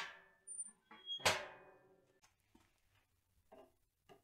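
Two loud metal clangs about a second apart, each ringing briefly, as a metal tool is handled at a wood stove and the stove's metal door is shut; a few lighter knocks follow.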